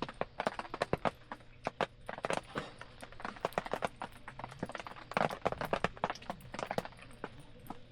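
Wood campfire crackling, with irregular sharp snaps and pops coming several times a second.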